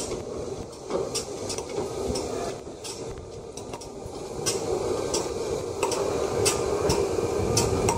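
Steam locomotive running slowly tender-first and coming closer, its wheels and running gear giving irregular metallic clanks and clicks over a steady background noise; the clanks grow louder and more frequent from about halfway through.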